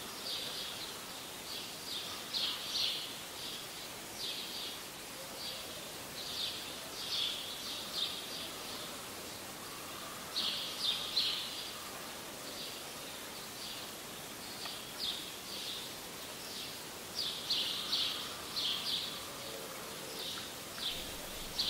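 Small birds chirping again and again in quick little clusters of short high calls, over a steady low hiss.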